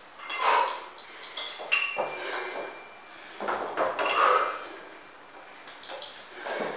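Trainers landing and scuffing on a wooden floor during a fast workout exercise, in several short bursts, with two brief high squeaks.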